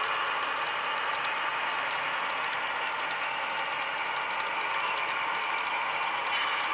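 Model railroad freight cars rolling past on the track: a steady whir of metal wheels on rails with quick, irregular clicking from the wheels over the rail joints.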